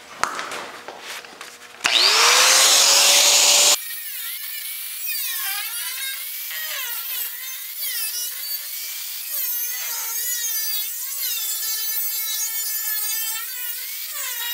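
Angle grinder cutting through a steel car door. It spins up with a sharp rising whine about two seconds in, and the loudest, harshest stretch follows at once. Then comes a steady high whine whose pitch dips and recovers again and again as the wheel bites into the sheet metal.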